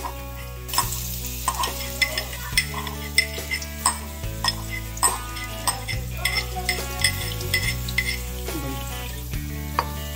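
Minced garlic sizzling in hot oil in a wok, with the clicks and scrapes of a wooden spatula stirring it.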